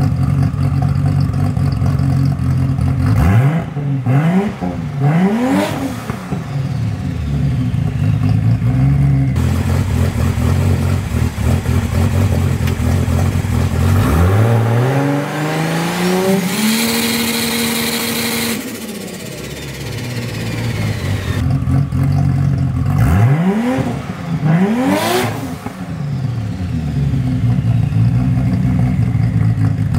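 Turbocharged Vortec 4200 inline-six, fitted with an Artec T4 exhaust manifold and a Precision 7675 turbo, idling and being revved. There is a pair of quick rev blips a few seconds in, a longer rev held for about two seconds midway, and another pair of blips near the end, each falling back to idle.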